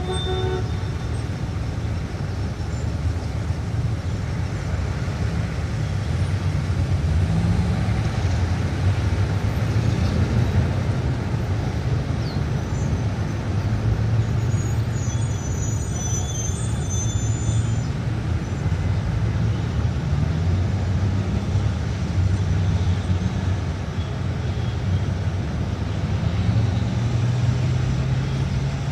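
Busy city street traffic: a dense, steady rumble of car, bus and truck engines passing, with a few brief high-pitched squeals about halfway through.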